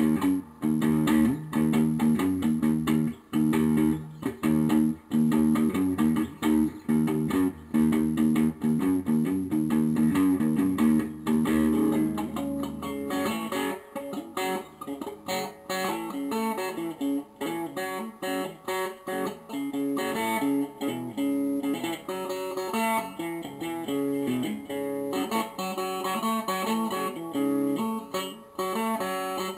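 Guitar music with plucked notes. About thirteen seconds in, the low notes drop out and a higher picked pattern carries on.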